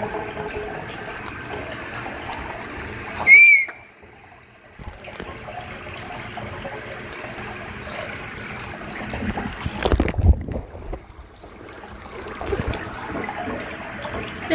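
Bath tap running into a shallow bath, a steady splashing trickle. About three seconds in there is a short, loud, high squeak, and around ten seconds a brief splash or knock.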